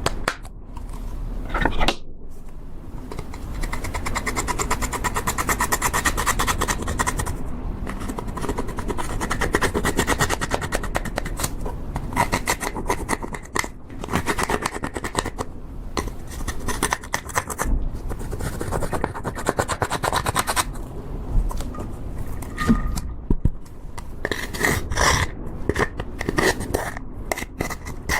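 Slime being squeezed, stretched and folded by hand, with a dense crackle of small sticky clicks and air-bubble pops. A softer stretch comes near three-quarters of the way through.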